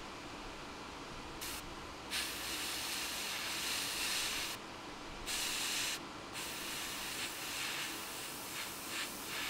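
Airbrush spraying MRP 128 silver paint in trigger-pulled bursts: a hiss that starts and stops, the longest burst about two seconds, then lighter, flickering spurts near the end.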